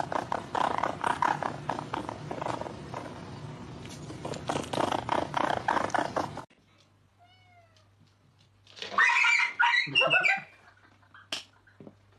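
A domestic cat meowing and yowling over scuffling noise for the first half, which cuts off suddenly. After the cut comes a quieter stretch with a few short high calls and then a loud, drawn-out meow about nine seconds in.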